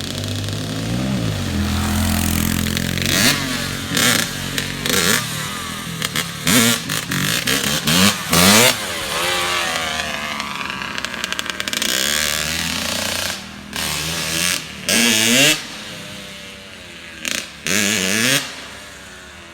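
Small off-road vehicle engine revving hard again and again, its pitch swinging up and down, with short loud rasping blasts at the peaks of the revs. It gets quieter near the end.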